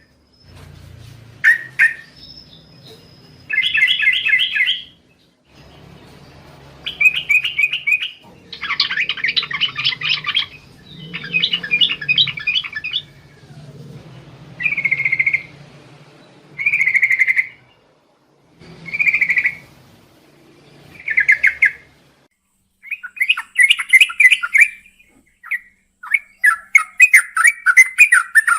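Yellow-vented bulbul singing: a series of short, bubbly whistled phrases with brief pauses between them, turning into a quicker run of notes near the end.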